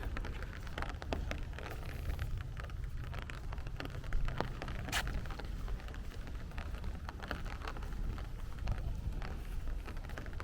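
Light lingering rain: scattered drops ticking irregularly over a steady low rumble.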